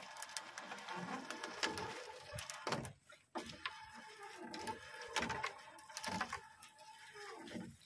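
A fisherman hauling a wet rope and fine-mesh fishing net hand over hand into a wooden boat: irregular clicks, snaps and rustling of the net and line, with a short pause about three seconds in. A faint steady tone runs under the second half.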